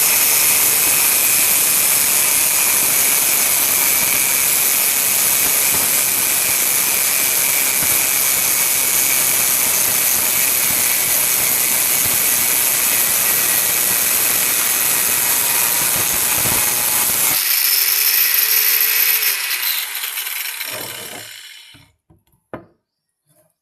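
Angle grinder cutting an iron rod with a steady, loud, high-pitched grinding. About seventeen seconds in the cutting stops and the grinder winds down, dying away a few seconds later, followed by a couple of light knocks.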